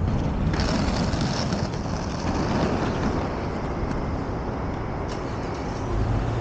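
Inline skate wheels rolling over asphalt, a steady rolling rumble with a brief brighter hiss about half a second in. A car's engine swells close by near the end.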